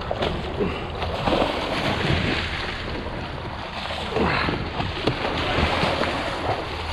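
Wind buffeting the microphone over water washing around a small boat, a steady rushing noise with occasional knocks and splashes.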